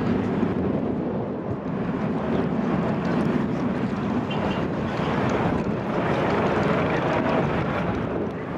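Airbus A320 passing overhead in a steep climb, its jet engines giving a steady rushing noise.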